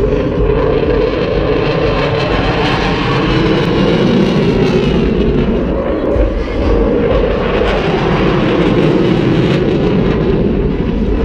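Fighter jet flying past overhead: a loud, continuous jet engine noise, with a sweeping shimmer in its hiss for a few seconds early on.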